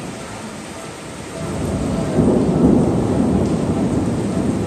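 Thunder rumbling over heavy rain, the roll building about a second in and loudest near the middle.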